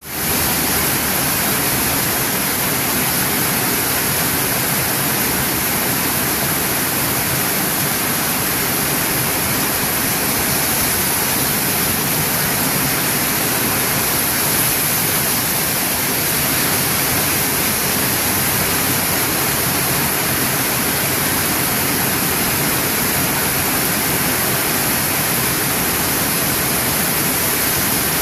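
Heavy rain falling on a tin porch roof, a steady dense hiss that stays even throughout.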